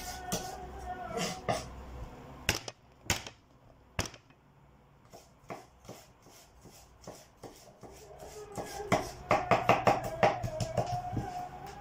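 Kitchen knife knocking on a cutting board while garlic is chopped: a few separate knocks, then a quicker run of chops from about nine seconds in.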